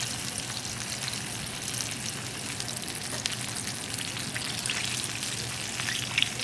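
Breaded chicken drumsticks frying in bubbling oil in a cast-iron skillet, the second fry that crisps them: steady crackling and spitting of the oil, with a few sharper pops near the end.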